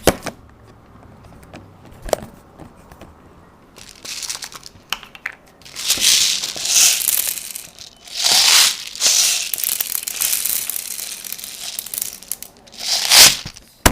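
Rustling, crinkling handling noise in several bursts of about a second each, the loudest near the end.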